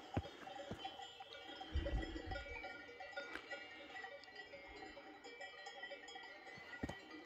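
Several cowbells ringing steadily on grazing livestock, many overlapping bell tones that waver without a beat. Now and then a footstep thuds on rocky ground, most heavily about two seconds in.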